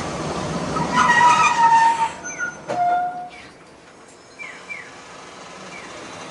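Tosaden 600-type tram (car 609) heard from inside the cabin, running and slowing, with its wheels squealing in ringing tones about a second in. The running noise then falls away sharply about three and a half seconds in as the tram comes to a stand.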